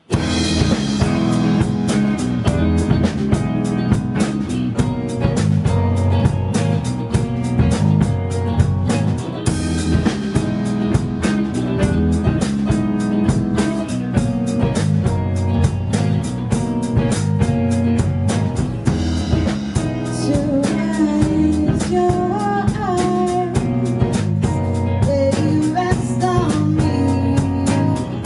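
A live band playing an instrumental intro: electric bass, electric guitars and drums keep a steady beat, and a lead melodic line with bending notes comes in about two-thirds of the way through.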